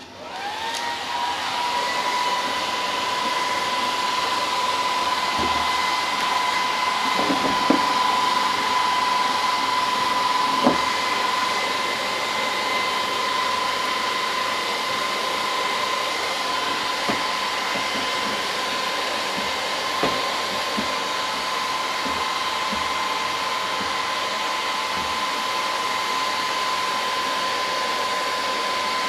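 Electric heat gun switched on, its fan spinning up with a rising whine, then running steadily with a high whine over a rush of air while it warms the vinyl graphics. A few faint knocks come around the middle.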